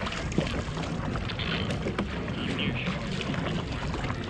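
Small waves slapping against a kayak's plastic hull, with wind on the microphone and scattered light clicks.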